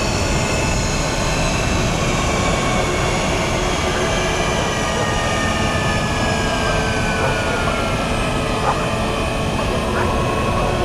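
Spaceship engine sound effect: a steady rumbling roar with several high whining tones that slowly fall in pitch.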